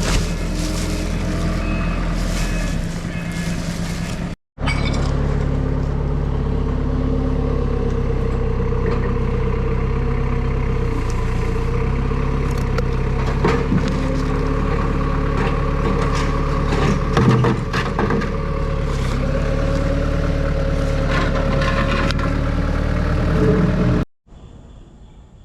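Mini excavator's diesel engine running steadily, with a few knocks partway through.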